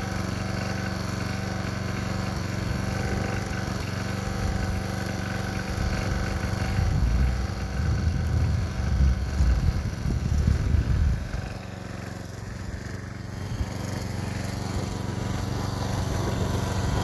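Walk-behind mower's small gasoline engine running steadily as the mower drives off across the grass. The sound grows louder and uneven for about five seconds in the middle, then eases back.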